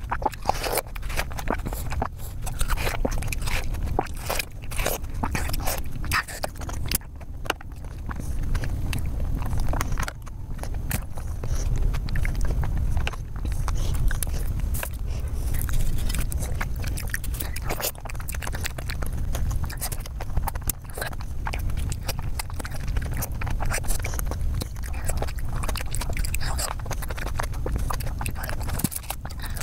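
Close-miked ASMR eating of fresh fruit (watermelon, dragon fruit, grapes): bites and chewing heard as a dense run of quick crunches and clicks.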